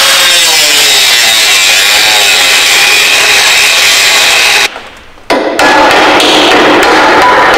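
Angle grinder with a flap disc grinding through a seized steel nut, its motor pitch sagging as the disc is pressed into the metal. The sound breaks off for about half a second a little past the middle, then loud grinding resumes.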